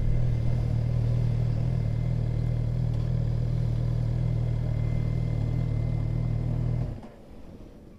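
Sport motorcycle engine idling steadily while the bike stands still, then stopping abruptly about seven seconds in.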